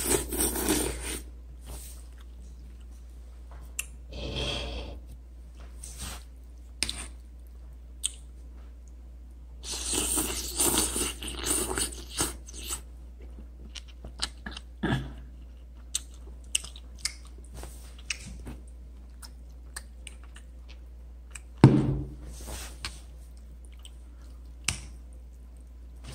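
A person slurping and chewing instant noodles close to the microphone. There are several slurps, the longest about ten seconds in lasting a couple of seconds and the loudest a short one about twenty-two seconds in. Between them come many short, wet chewing clicks.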